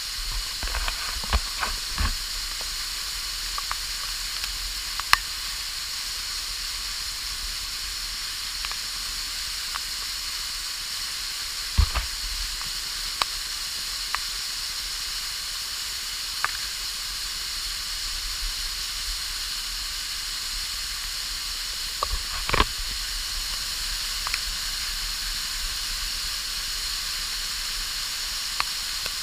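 Steady rushing hiss of a waterfall, with scattered sharp clicks and knocks, the loudest about twelve seconds in and again about twenty-two seconds in.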